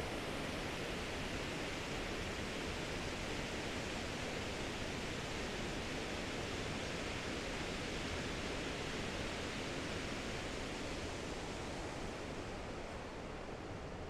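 Waterfall of the Boulder River rushing steadily, a little quieter near the end.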